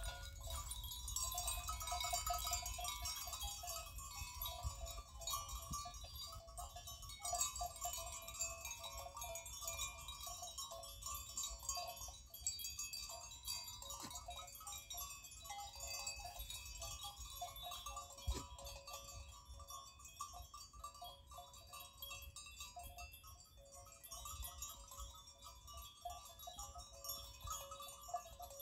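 Small bells on a grazing goat herd clinking and tinkling irregularly and continuously, with a low wind rumble on the microphone.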